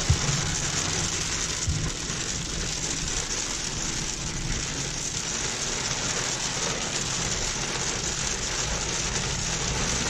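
Heavy rain on a car's roof and windshield heard from inside the moving car: a steady hiss with tyre and road noise beneath it. A couple of brief low thumps come in the first two seconds.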